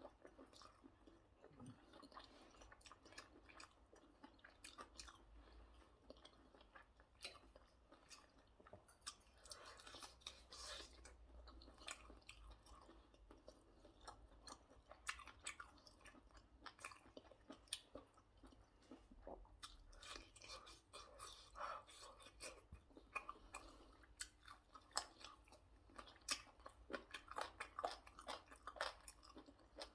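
Faint close-up chewing and biting of food: soft wet mouth clicks and smacks at an irregular pace, getting busier near the end.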